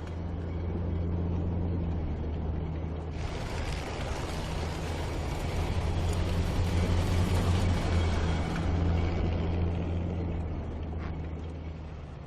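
Tracked over-snow vehicle driving across the sea ice: a steady engine hum with a rushing noise of travel that swells for several seconds in the middle, then eases off.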